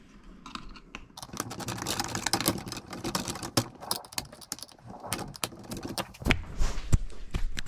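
A Jubilee clip (worm-drive hose clamp) being tightened onto corrugated heater ducting: a rapid run of fine clicks as the screw thread works through the slots in the band, lasting about five seconds. It ends in a few louder knocks.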